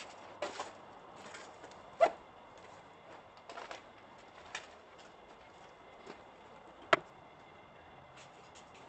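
Footsteps crunching and knocking on a debris-strewn floor: scattered short crunches and clicks, with two louder sharp knocks about two and seven seconds in.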